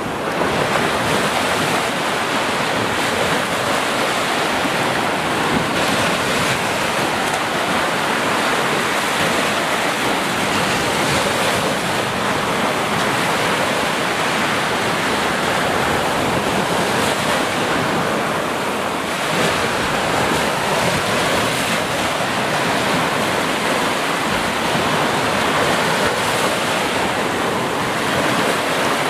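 Ocean surf: small waves breaking and washing up a sandy beach, a steady, continuous hiss of water.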